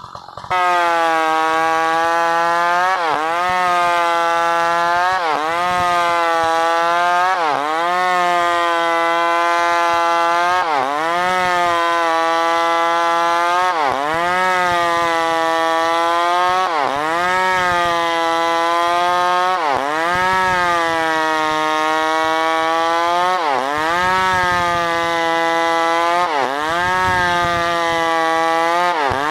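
New West PRO 888 two-stroke chainsaw running at high revs, starting abruptly about half a second in. Its pitch drops sharply and climbs back about every two to three seconds, as the chain bogs under load in the cut and recovers.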